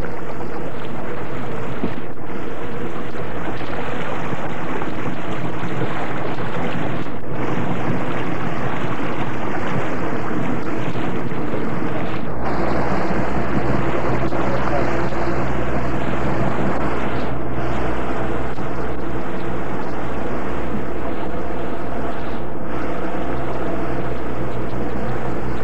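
Boat engine running steadily at one pitch, with a noisy rush over it, dipping briefly about every five seconds.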